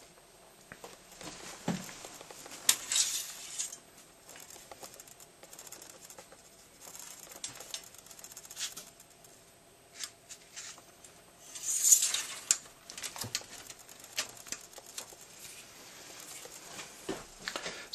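Light rustling and scattered clicks of handling noise, with a couple of louder scuffs. No engine is running.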